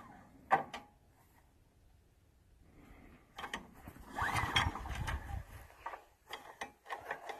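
Recoil starter of a Timbery M100 sawmill's 9 hp Subaru engine being pulled, with a whirring, ratcheting turn-over about three and a half seconds in; the engine does not catch. It is a cold engine that still needs warming up. A single click sounds about half a second in.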